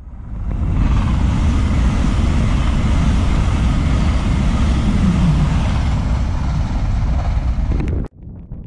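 Train passing at speed: a loud, steady rush and rumble of wheels and air that swells in over the first second and cuts off abruptly near the end.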